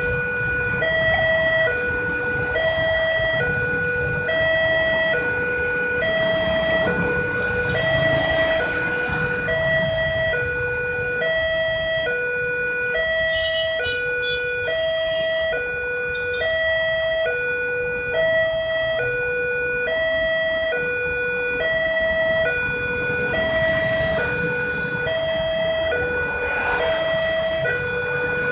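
Railway level-crossing warning siren sounding from a horn loudspeaker, a steady two-tone wail that alternates between a high and a low pitch about once a second. It signals an approaching train, with road traffic rumbling underneath.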